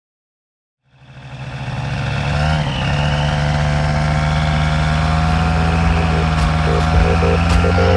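Sky Engines Boxer 220s paramotor engine and propeller running steadily in flight. The sound fades in about a second in, after silence, and holds an even pitch with a small wobble near the three-second mark. A few sharp clicks come near the end.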